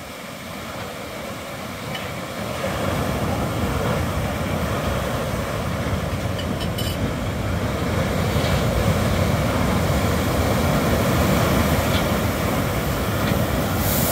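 Heavy surf from a hurricane swell breaking and washing up a sand beach: a steady rush of water with a deep rumble that grows louder over the first few seconds and then holds.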